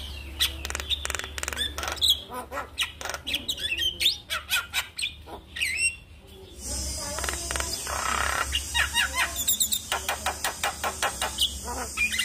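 Javan myna singing: a rapid, busy run of sharp clicks, chatters and short whistled notes. About halfway through, a steady high hiss comes in under the song.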